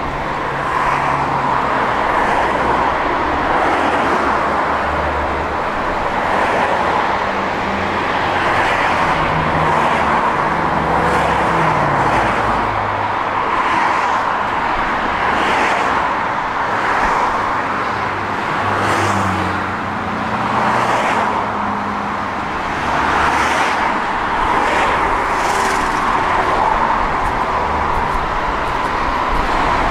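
Street traffic: motor vehicles running and passing by, a steady wash of road noise with engine tones that rise and fall as they pass.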